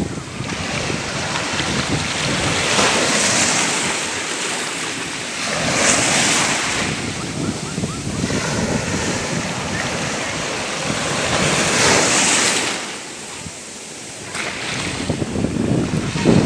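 Sea waves breaking and washing on a shore, surging and receding in repeated swells every few seconds, with a short lull near the end before the next wave breaks.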